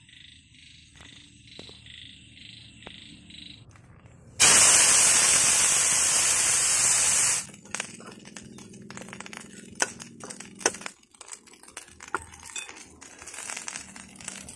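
Metal spoon scraping and clinking in a steel wok as fried june beetles are stirred, with many sharp scrapes and clicks in the second half. Before that, faint high chirping pulses about three times a second, then a loud steady hiss for about three seconds that cuts off suddenly.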